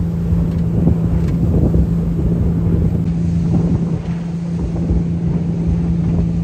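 Small motorboat's engine running at a steady pitch while under way, with heavy wind buffeting the microphone.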